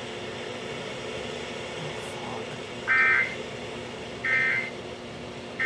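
Emergency Alert System end-of-message code: three short, buzzy bursts of two-tone SAME digital data, a little over a second apart, the third right at the end. They mark the close of the alert. Before them there are a few seconds of low radio hiss and hum.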